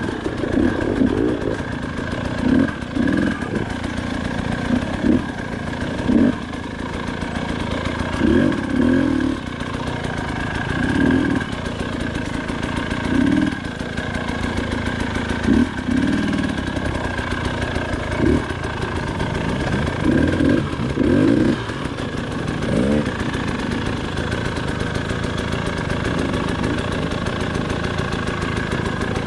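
KTM 300 XC-W two-stroke single-cylinder dirt bike engine running at low speed, with repeated short blips of throttle every second or two.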